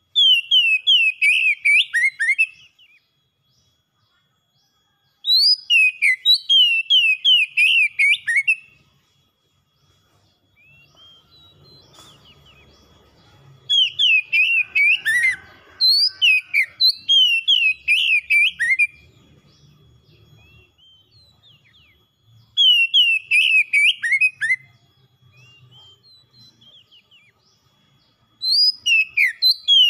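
Oriental magpie-robin singing in bursts of a few seconds, each a fast run of repeated, falling whistled notes, with pauses of a few seconds between.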